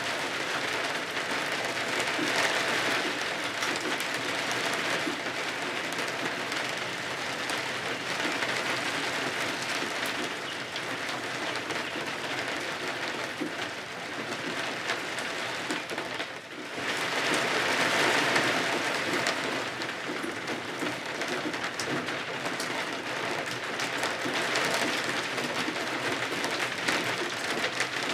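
Steady rain falling, swelling and easing in waves, with a brief lull about two-thirds of the way through before it picks up again.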